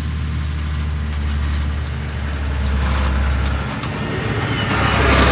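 John Deere 7R310 tractor's diesel engine running steadily as the tractor drives up, growing louder near the end as it passes directly overhead.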